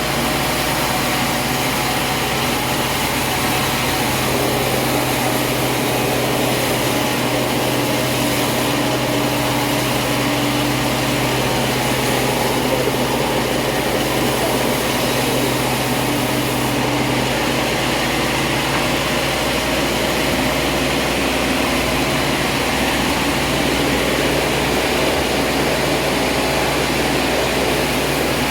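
Sawmill machinery running steadily: a constant motor or engine hum under an even whirring noise, with no separate cutting strokes or impacts.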